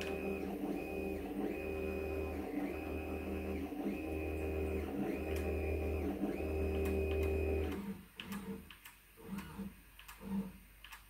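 Stepper motors of a 3D-printed robot arm whining as the arm moves in a string of about seven short moves, each about a second long with brief pauses between, stopping about eight seconds in; a few faint knocks follow.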